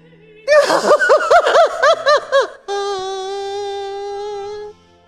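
A woman's hysterical, laughter-like sobbing: a quick run of loud cries, each rising and falling in pitch, then one long held wail that cuts off suddenly.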